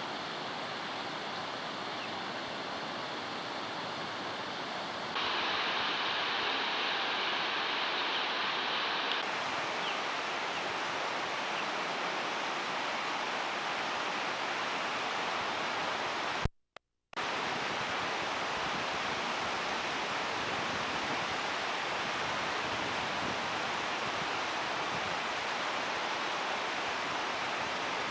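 River rapids rushing steadily over rocks. The rush gets louder about five seconds in, and it cuts out briefly a little past halfway.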